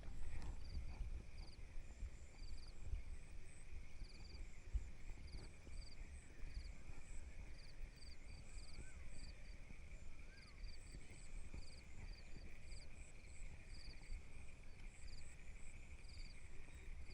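Night insect chorus: a steady high trill that swells and dips about once a second, with short chirps repeating above it. Low, irregular rumbling and thumps sit underneath.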